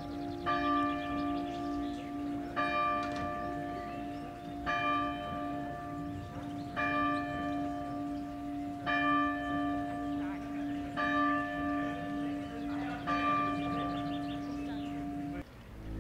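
A single church bell tolling slowly, about one strike every two seconds, each stroke ringing on in a long hum. The ringing cuts off suddenly near the end.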